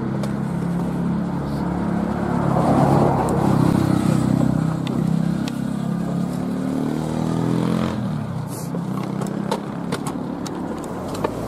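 A road vehicle's engine passing close by. It grows to its loudest a few seconds in, then drops in pitch as it moves away.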